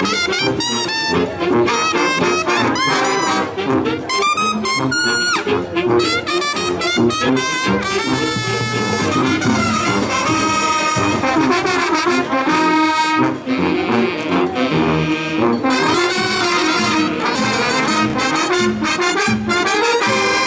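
Marching band playing a lively tune, its brass section in fast runs over drums, with long held chords around the middle.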